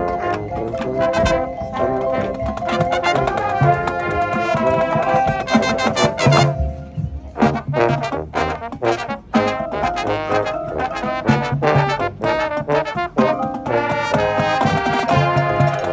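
Marching band brass playing. Chords are held for the first several seconds and cut off sharply, followed by a run of short, punched notes, then sustained chords again near the end.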